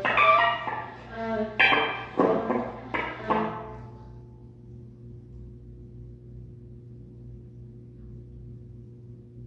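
Viola played with the bow in a few short, sharply attacked notes, the last notes of a free improvisation, stopping about three and a half seconds in. After that only a steady low hum remains.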